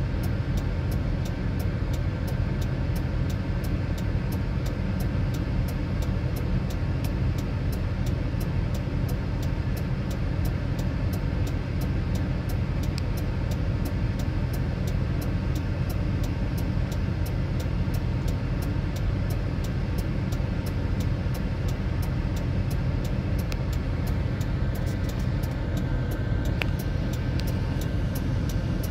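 A vehicle engine idling, heard from inside the cab: a steady low rumble with a faint, fast, regular ticking.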